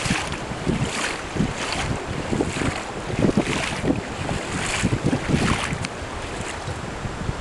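Wind buffeting the camera microphone in uneven low rumbles, over the steady hiss of a running river.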